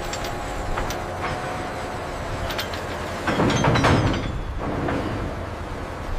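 Heavy industrial machinery rumbling, with scattered metallic clanks and rattles like a load rolling on rails. It swells louder for about a second, a little over three seconds in.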